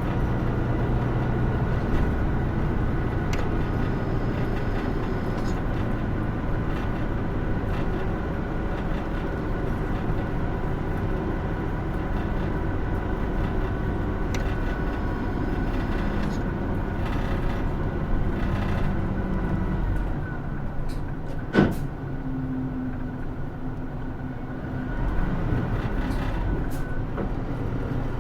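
Inside a Hino Rainbow II diesel route bus on the move: steady engine and road noise, easing off about 20 seconds in and picking up again near the end. One sharp knock stands out a little after 20 seconds.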